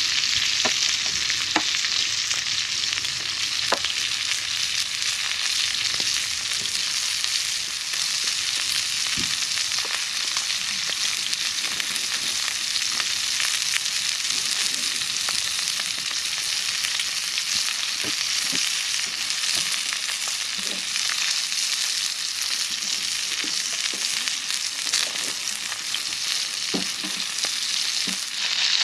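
Food sizzling and frying steadily in a cast-iron skillet, a continuous hiss with small scattered pops and crackles.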